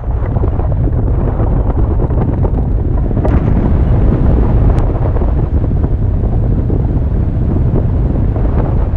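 Airflow of a hang glider in flight buffeting the glider-mounted camera's microphone: a loud, steady low rush of wind noise.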